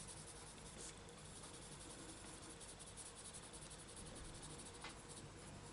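Near silence: faint room hiss with two soft clicks, about a second in and near the end.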